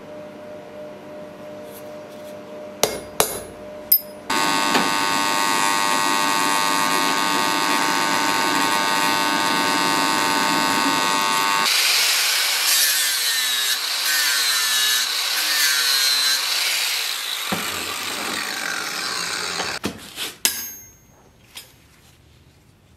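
An electric power tool starts suddenly and runs steadily with a high, even motor tone. About halfway through it is worked against the steel, giving a harsh grinding hiss whose pitch wavers up and down. It winds down a few seconds before the end, followed by a couple of clicks.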